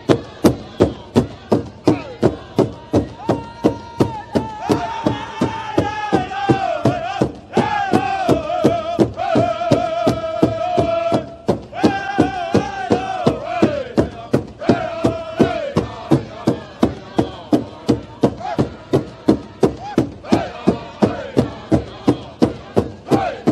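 Background music: a steady drumbeat of about two beats a second, with a chanted vocal melody over it from a few seconds in until past the middle.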